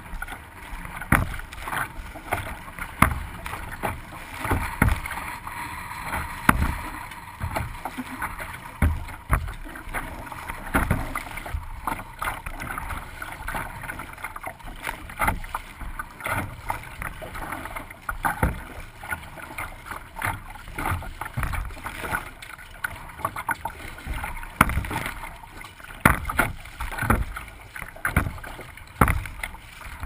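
Choppy waves slapping and splashing against the hull of a small plastic kayak, with spray hitting the bow-mounted camera: irregular sharp slaps several times a second over a steady rush of water.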